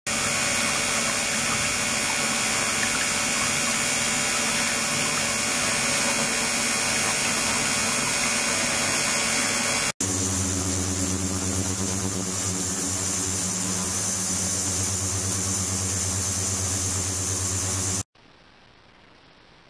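Ultrasonic cleaning equipment running with water flowing through it: a loud steady hiss laced with many steady high tones. About ten seconds in it cuts to a steady low hum with evenly spaced overtones under a high hiss, and shortly before the end it drops to a faint background.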